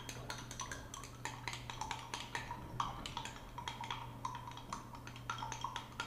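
A stirring rod clinking rapidly and irregularly against the inside of a glass beaker as a white suspension is mixed into a cosolvent, over a steady low hum.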